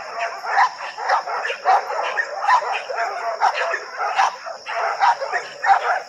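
Kennel dogs barking in a quick, unbroken run of barks, about three a second.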